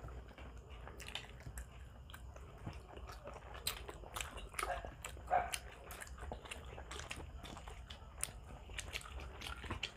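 Close-up eating sounds: chewing, biting and lip smacks of people eating grilled barbecue skewers and rice by hand, as irregular soft clicks and smacks with a few louder ones near the middle.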